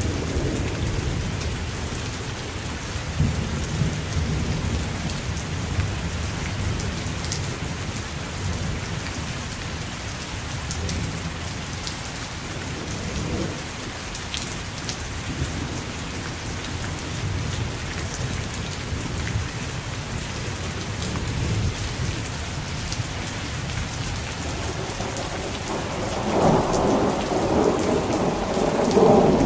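Steady rain falling, with low thunder rumbling underneath and a louder roll of thunder swelling near the end.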